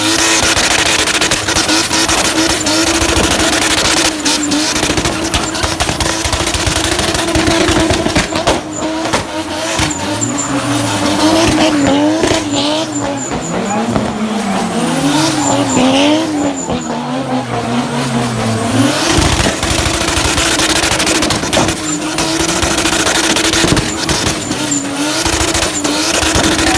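A drift car's engine is held at high revs while its tyres squeal and skid on the tarmac. Through the middle stretch the engine note rises and falls again and again as the car is swung round in tight circles.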